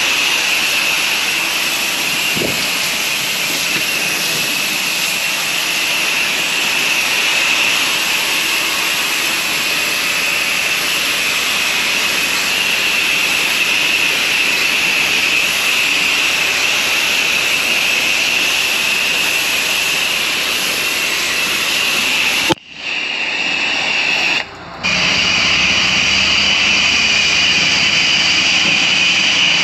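Pressure-washing equipment running, with a steady rushing spray hiss. It breaks off abruptly for a moment twice near the end, then carries on.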